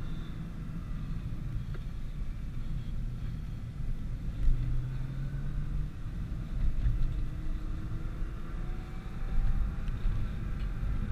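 Nissan GT-R under way: a steady low engine and road rumble. From about halfway in, the engine note climbs gradually in pitch as the car accelerates.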